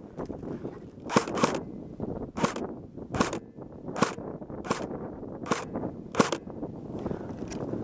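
Airsoft gun firing single shots, about eight sharp cracks roughly a second apart, the first two close together, over low rustling noise.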